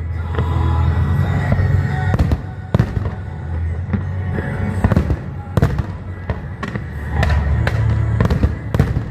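Fireworks display: a dozen or so sharp bangs and cracks of bursting shells at irregular intervals, over a low rumble and music playing.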